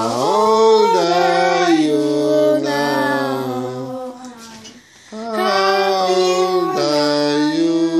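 Several voices singing a birthday song in long held notes: two drawn-out phrases with a short break about four to five seconds in.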